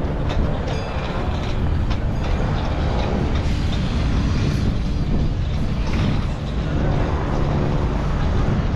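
Steady low rumble of heavy vehicle traffic.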